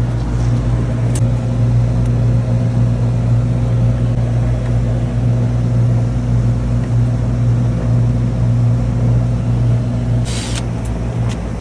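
Trane packaged air-conditioning unit running with a steady low hum, and a short hiss about ten seconds in.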